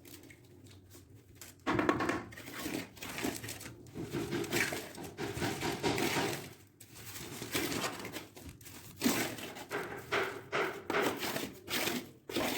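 Irregular scraping, rustling and knocking from hand work on a bathroom drain, starting suddenly about two seconds in.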